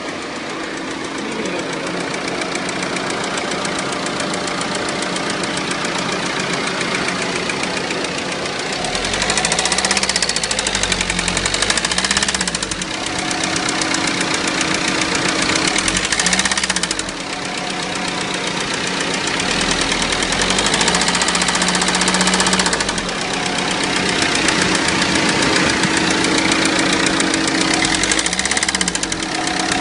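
Renault Scenic's 1.5 dCi four-cylinder turbodiesel running and revved up and down several times from about nine seconds in, with a knock that comes in as the revs climb from about 1500 to 2500 rpm. Replacing the injectors has not cured the knock.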